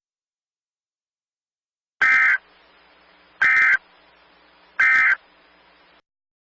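Emergency Alert System SAME end-of-message data tones: three short bursts of the modem-like two-tone data signal, about a second and a half apart, marking the end of the alert. Faint hiss lies between the bursts and stops just after the third.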